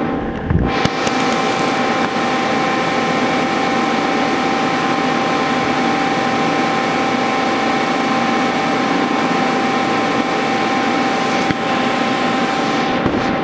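A Daewoo Puma 10HC CNC lathe running under power: a steady mechanical whine of several pitched tones over a hiss. There is a sharp click near the end, and the sound then dies away as the machine winds down.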